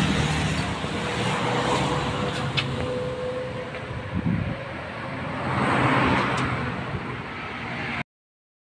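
Road traffic going by, with one vehicle swelling louder and fading about six seconds in; the sound cuts off suddenly near the end.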